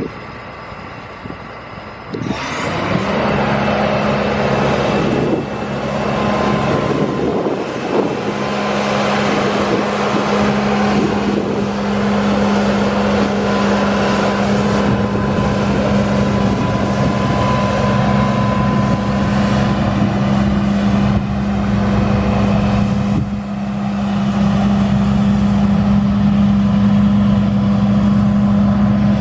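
Large vehicle engine running steadily under a heavy hum. It grows suddenly louder about two seconds in and stays loud.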